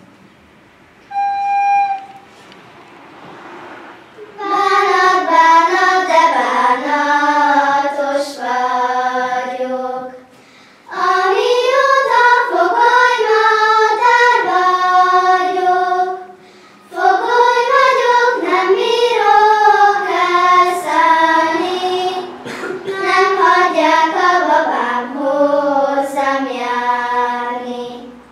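A group of children singing together, the song starting about four seconds in and going in phrases with short breaks near ten and sixteen seconds. About a second in, a single short held note sounds before the singing starts.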